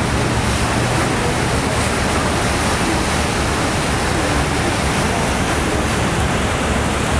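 Steady rushing of wind and water on the deck of a moving boat crossing choppy river water, with a low rumble underneath.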